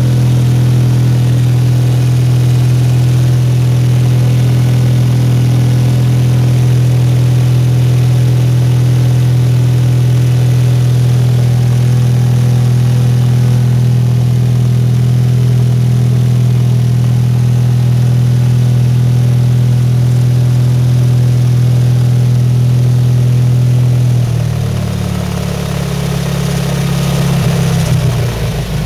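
Engine of the 520-SC Snow Chucker running at a steady idle, heard from inside its cab. Near the end its note shifts and wavers and its loudness dips, then rises again.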